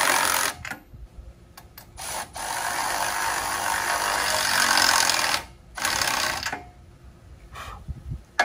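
Power ratchet running in bursts, tightening the nut on a half-inch carriage bolt so the bolt head draws just slightly into a wooden bunker board. A short run at the start and a few brief blips are followed by a longer run of about three seconds, then another short burst. A sharp knock comes near the end.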